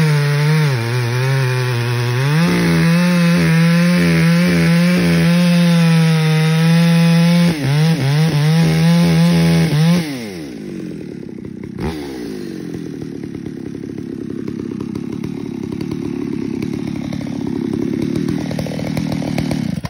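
Stock Poulan Pro 655BP 55cc two-stroke chainsaw with a 24-inch bar running at full throttle through a log, its pitch dipping and recovering under load. About halfway through the throttle is released and the engine falls to a steady idle, with a single sharp knock a couple of seconds later.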